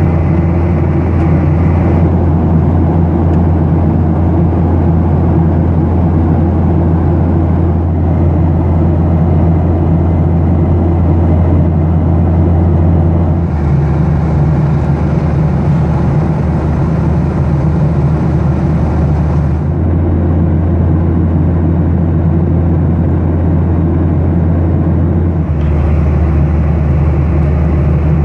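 Steady cabin drone of a Boeing 737-800 in flight: the rush of its CFM56-7B engines and airflow heard inside the passenger cabin, with a low hum that shifts slightly a few times.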